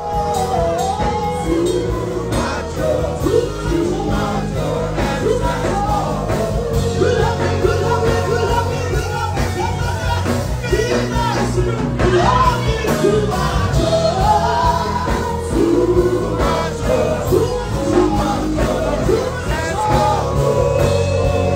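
A song playing loudly: a singing voice over a steady bass line.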